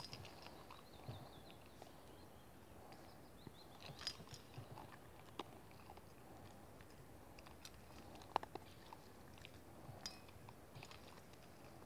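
A small dog crunching dry kibble from a metal bowl: faint, irregular crunches and clicks of pellets, with the sharpest click about eight seconds in.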